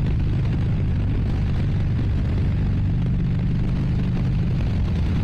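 Harley-Davidson Sport Glide's V-twin engine running steadily at cruising speed, with wind rush over the microphone.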